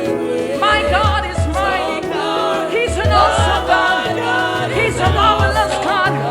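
Live gospel praise music: singers with a backing band, voices gliding over held chords and a steady pulsing bass.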